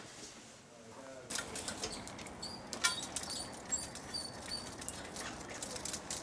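Water spraying from a rain-rack test rig onto a house wall and window, a steady hissing patter with scattered splashes that sets in about a second in. A few short high chirps, like a small bird's, come through in the middle.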